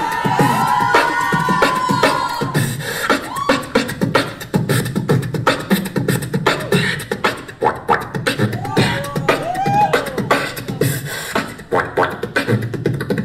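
Beatboxing into a handheld microphone cupped in the hand: a fast run of vocal kick, snare and hi-hat sounds, with pitched, gliding vocal tones laid over the beat near the start and again about nine seconds in.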